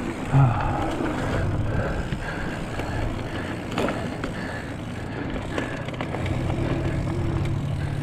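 Hardtail mountain bike rolling along a dirt trail: steady tyre rumble and rattle of the unsuspended bike, with a sharp knock about four seconds in.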